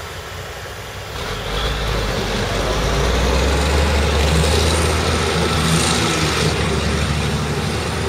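A truck's engine running steadily under load as it works through deep mud, growing louder about a second and a half in and easing slightly near the end.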